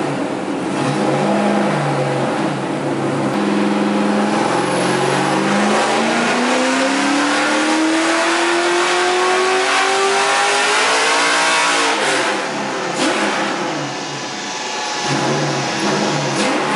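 LS V8 engine of an E46 BMW drift car making a full-throttle pull on a chassis dyno. It holds steady revs at first, then climbs smoothly in pitch for about seven seconds. About twelve seconds in, the throttle is shut and the revs fall away.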